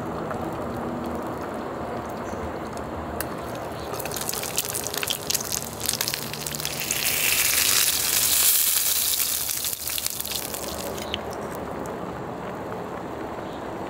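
Chicken sizzling on the oiled grill plate of a two-in-one electric hotpot-and-grill cooker as it is pressed down: the sizzle starts about four seconds in, is loudest a few seconds later, and stops about eleven seconds in. The hotpot broth on the other side bubbles steadily underneath.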